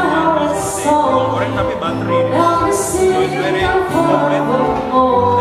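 Background music: a song with singing over a steady bass line.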